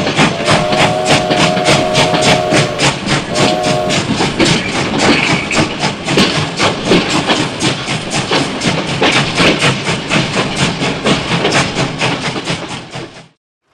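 Toy steam locomotive's train sound effect: rapid, even chuffing at about four or five chuffs a second, opening with a long whistle and then a short one, and cutting off abruptly near the end.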